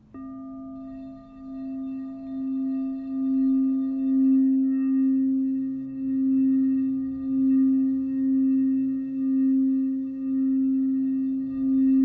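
Crystal singing bowl sounding one steady tone: it starts suddenly, builds in loudness over the first few seconds, then swells and fades about once a second.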